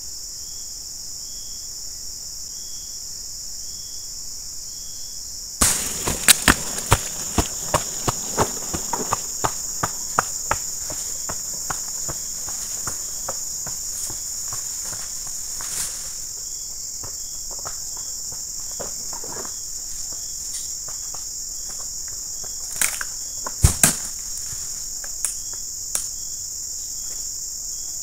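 Steady high-pitched insect chorus with a short chirp repeating under it about once a second. About six seconds in, a dense run of sharp crackles and snaps starts, dry twigs and palm fronds breaking on the plantation floor, and lasts about ten seconds. A few louder snaps come near the end.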